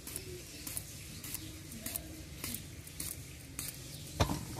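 Knife slicing through eggplant into thin rounds, with about six crisp cuts coming roughly every half second or so, and a dull knock near the end.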